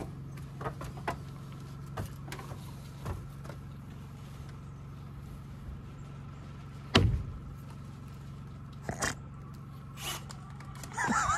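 Scattered wooden knocks and taps as a straw-filled pallet wall panel is worked into place, with one heavy thump about seven seconds in and a lighter one about two seconds later, over a steady low hum.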